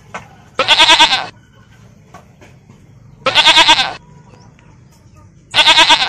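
A farm animal calling three times, about two and a half seconds apart. Each call is short, loud and quavering.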